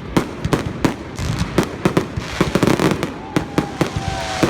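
Fireworks going off: a rapid, irregular run of sharp bangs and cracks, several a second. In the second half a thin whistle slides slowly down in pitch.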